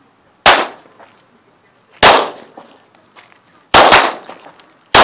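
Glock pistol firing four shots, evenly spaced at about a second and a half apart, then the last two in quick succession, each with a short echoing tail.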